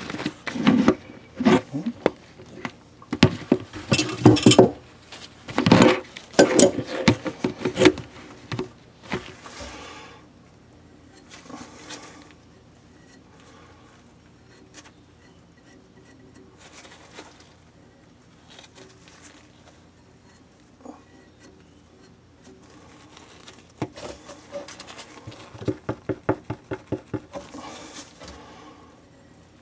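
Quick runs of rubbing and scraping strokes on a pipe as it is worked by hand with soldering flux, in a busy spell of several seconds, then scattered quieter handling, then a second run of strokes near the end.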